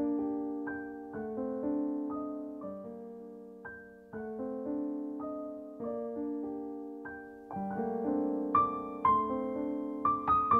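Gentle background piano music playing chords and a melody, growing louder with higher, brighter notes in the last few seconds.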